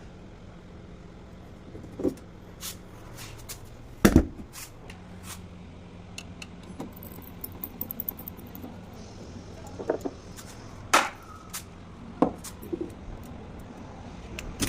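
Scattered metallic clinks and knocks of hand tools and parts being handled during washing machine repair, with sharper knocks about four and eleven seconds in, over a low steady hum.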